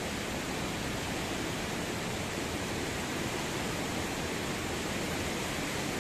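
Fast-flowing river water rushing over rocks, a steady even rush.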